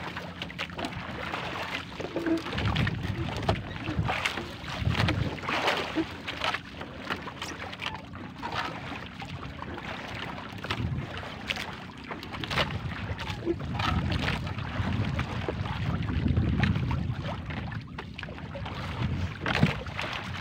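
Wind rumbling on the microphone and water lapping against an outrigger canoe, with irregular knocks and rustles as a fishing net is hauled aboard by hand.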